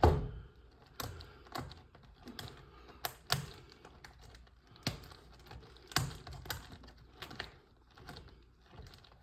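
Irregular light clicks and taps from hands handling a cardboard trading-card hobby box and its foil packs as it is opened.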